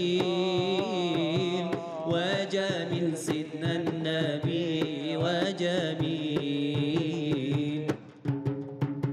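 Male munshid singing a melismatic Arabic religious inshad over a steady beat of hand percussion. About eight seconds in the voice stops, leaving hand-drum strokes and ringing struck notes.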